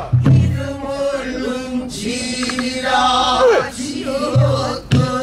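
Male pansori singer singing a danga, the short song that opens a pansori performance, in long held notes that bend and waver in pitch, with short breaks between phrases.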